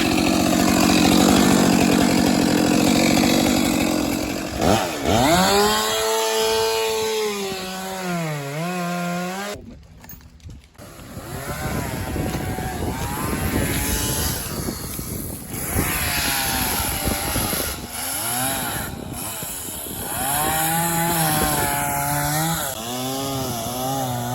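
Chainsaw cutting into a tree trunk to notch it for felling. The engine revs up and its pitch sags repeatedly as the chain bites into the wood.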